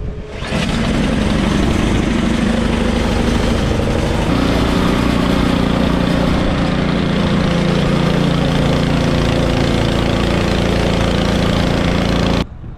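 An engine running steadily, its note changing about four seconds in, cutting off suddenly near the end.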